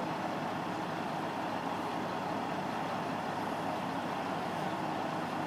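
Heavy recovery truck's diesel engine running steadily.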